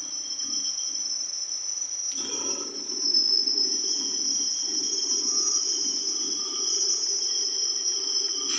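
Cylinder boring machine cutting out the bore of a 70 cc motorcycle cylinder: a steady high-pitched whine from the cutting tool over a lower machine hum. The hum gets louder about two seconds in.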